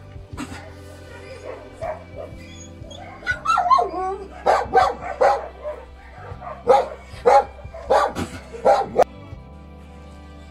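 A dog yipping and barking in two runs of short barks, with a bending whine just before the first, over steady background music.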